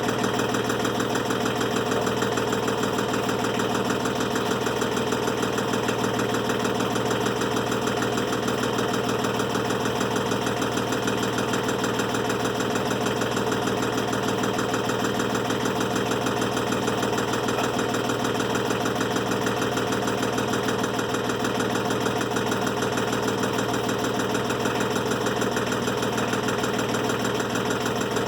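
An engine idling steadily, at an even speed throughout.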